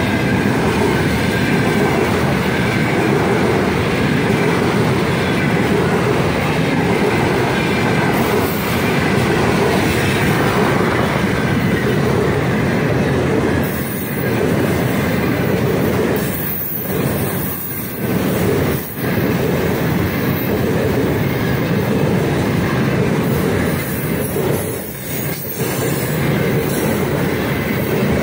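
Container flatcars of a freight train rolling past close by: a steady, loud din of steel wheels on the rails with clattering wheelsets. The noise dips briefly a few times in the second half.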